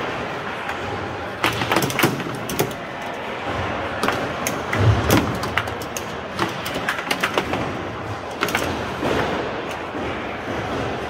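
Foosball table in play: a rapid, irregular run of sharp clacks and knocks as the ball is struck and passed by the plastic figures and the rods are slammed, over a steady murmur of hall ambience.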